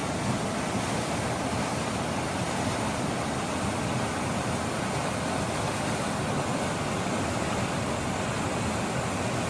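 Steady rush of a fast-flowing river, running high with water released from an upstream dam.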